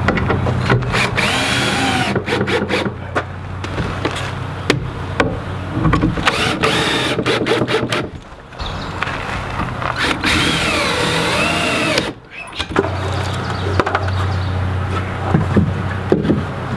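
Cordless drill driving screws into rough-sawn lumber trim, the motor running in several long runs whose pitch rises and falls as each screw goes in, with short stops about eight and twelve seconds in.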